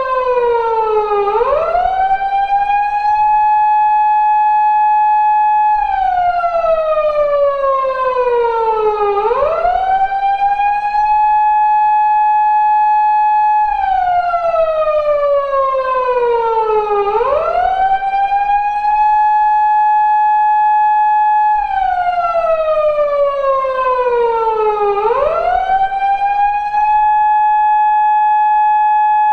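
Japanese police car siren of the type used on 170- and 180-series Toyota Crown patrol cars, sounding its slow wail. The pitch sweeps up quickly, holds a steady high tone for about four seconds, then falls slowly, in a cycle that repeats about every eight seconds, four times here.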